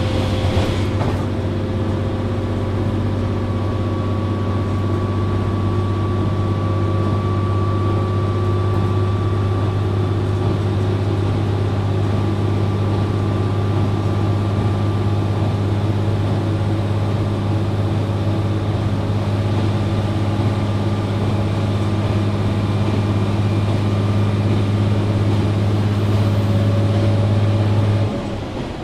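Steady drone of a JR Shikoku 1000 series diesel railcar's engine. Near the end the engine note stops and the sound falls noticeably quieter.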